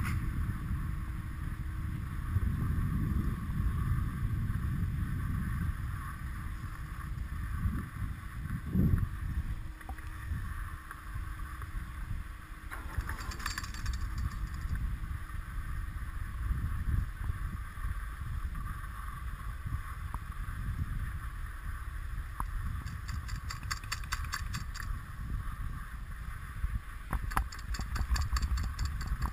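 Skis sliding over packed snow while being towed up a Poma button surface lift: a steady low rumble with hiss. Short bursts of rapid clicking about halfway through and again twice near the end.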